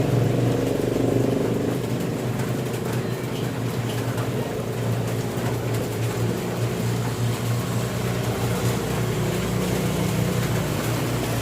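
Steady low hum of a running machine, even in level, with faint scattered clicks over it.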